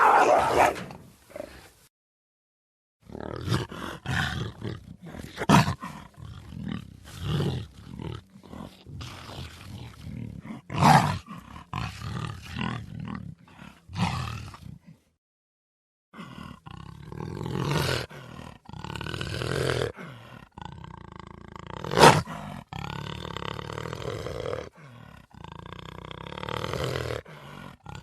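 Big cat growling and roaring in a long run of short, rough calls of varying length, the loudest about twenty-two seconds in. The calls break off twice into a second or so of dead silence.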